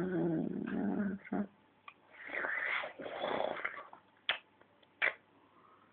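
A sleeping man snoring: a long buzzing snore in the first second and a half, then two noisier, breathier snores. Two short clicks come near the end.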